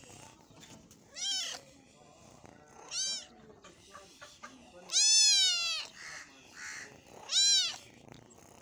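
Young kitten meowing four times, high-pitched calls that rise and fall in pitch; the longest and loudest comes about five seconds in.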